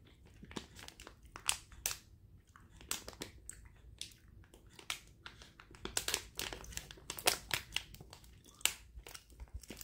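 Foil-lined plastic snack-bar wrapper crinkling as it is peeled open by hand, in irregular crackles.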